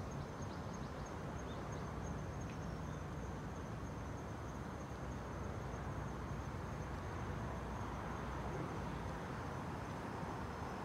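Insects trilling steadily in a high, thin continuous note, over a low steady rumble.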